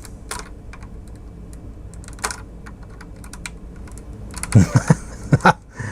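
Small, scattered clicks and taps of an X-Acto hobby knife and fingers working at the plastic wheel mount of a 1/18 diecast model car.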